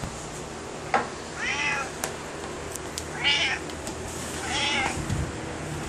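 Domestic cat meowing three times, each call bending up and then down in pitch, about a second and a half apart.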